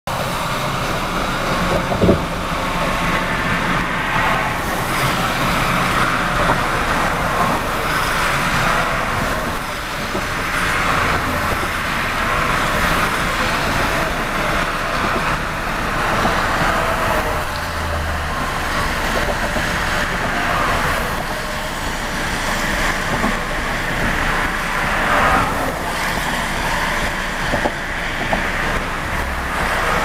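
Steady road noise of a moving vehicle, with a brief knock about two seconds in.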